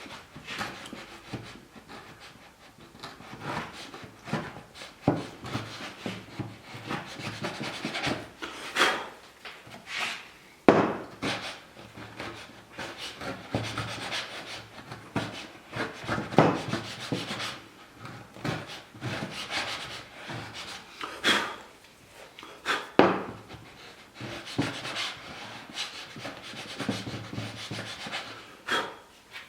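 A hand tool scraping and shaving wood in repeated irregular strokes, each a second or so long, with sharp knocks and clicks between them; the sharpest knock comes about a third of the way in.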